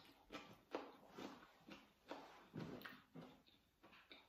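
Close-up chewing of raw cucumber: a run of irregular crisp crunches, two or three a second.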